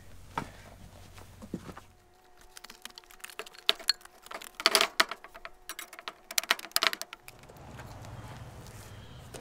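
Light metallic clinks and clanks of truck-wheel hardware being handled at a spoked (Dayton) wheel hub. They come in clusters through the middle, the loudest around five seconds in. A low steady rumble is heard before and after them.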